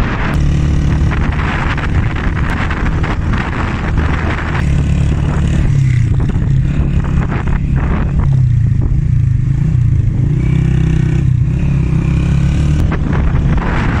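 Motorcycle engine running steadily while riding along a hill road, its pitch rising and falling a little with the throttle.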